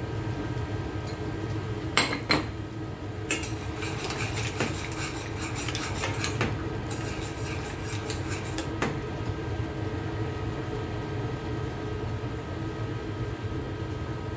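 Long metal tongs clinking and scraping against a stainless steel saucepan as linguine in tomato seafood sauce is tossed: two sharp clinks about two seconds in, then a dense run of rapid clicks from about three seconds to about nine, over a steady background hum.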